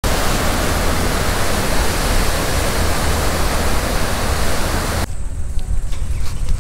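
A loud, steady rushing noise with no pitch that cuts off abruptly about five seconds in, giving way to a lower rumble.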